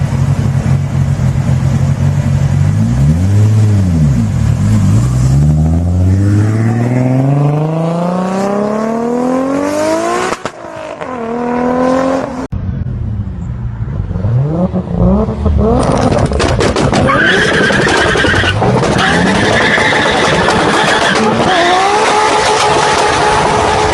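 Tuned performance car engines from several cuts: one idles, blips once, then pulls hard with its pitch rising steadily for about five seconds before a cut to other cars revving.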